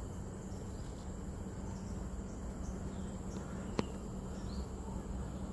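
Steady high-pitched insect chorus over a low steady hum, with a single sharp click a little before four seconds in.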